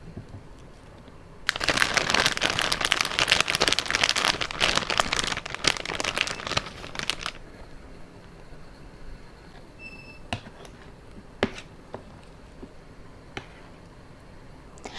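Plastic packaging crinkling for about six seconds as it is handled and opened, followed by a few separate sharp clicks.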